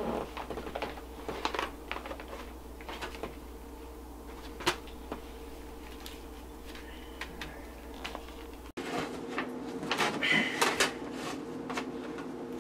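Soft handling noises of small objects being fingered and passed between hands: scattered light clicks and rustles, with one sharper click a bit under five seconds in. A low background hum cuts out abruptly about nine seconds in, and the rustling and clicking get busier after that.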